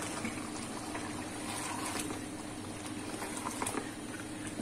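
Minced beef and yogurt gravy bubbling at a simmer in a metal pot while being stirred with a wooden spoon: a steady bubbling hiss with a few scattered soft ticks.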